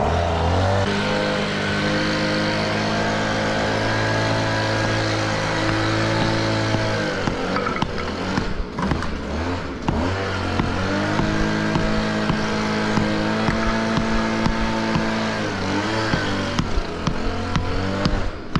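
A motor runs at a steady, raised speed for about seven seconds, winds down, then runs up again and holds for about five seconds. Sharp taps sound in the gap and more often near the end.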